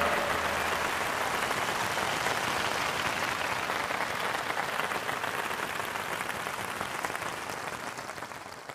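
Audience applause, starting as the orchestra's last chord dies away and slowly fading out near the end.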